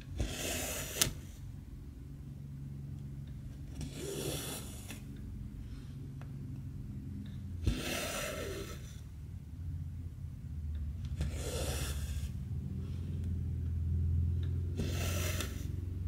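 Cotton embroidery thread drawn through stamped cross-stitch fabric: a rasping pull of about a second, five times, roughly every three and a half seconds, with two sharp ticks. A low steady rumble runs underneath and grows near the end.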